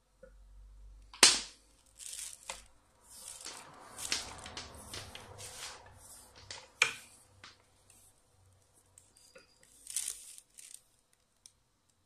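A fabric-braided USB charging cable handled and uncoiled by hand: rustling and scraping of the braid in irregular bursts, with a sharp click about a second in and another near seven seconds.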